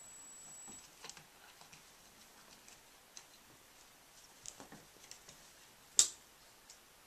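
A kitten scrabbling and rolling on a shaggy carpet: scattered faint ticks and rustles of its claws and paws, with one sharp click about six seconds in.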